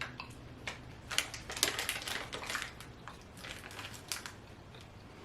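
Snack packaging being handled, with scattered crinkles and small clicks as another snack is taken out to try.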